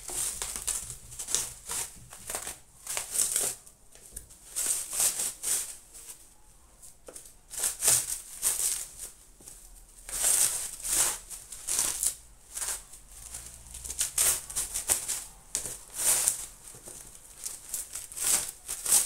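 Bubble wrap and plastic packaging crinkling and rustling in quick irregular bursts as it is handled and pulled open by hand.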